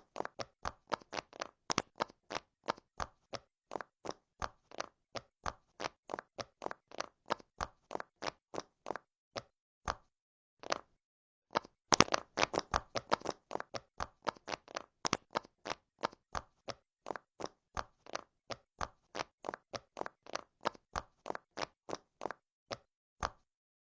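Bubbles of a silicone pop-it fidget toy being pressed one after another, a steady run of short soft pops about three a second. Near the middle there is a gap of about two seconds with a single pop, then a quick flurry of pops.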